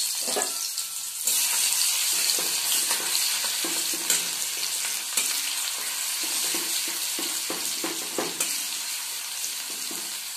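Garlic paste sizzling as it fries in hot oil in a steel kadai, with a spatula stirring and scraping across the pan.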